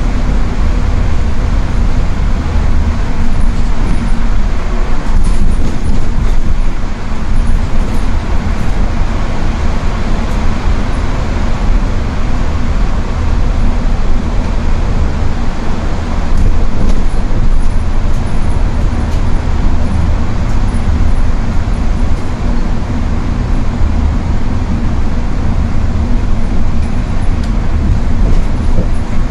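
Steady road noise of a vehicle travelling along a wet highway: a deep rumble with tyre noise from the wet road surface, rising and falling slightly.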